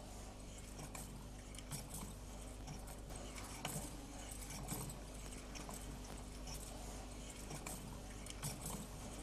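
Small hand-cranked wooden automaton being turned: its crank-slider mechanism, where a crank pushes a rod that moves the figure up and down, gives soft, irregular wooden clicks and taps, several a second, over a low steady hum.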